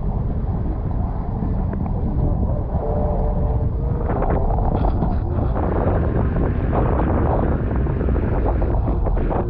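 Wind buffeting the camera microphone: a steady, loud low rumble.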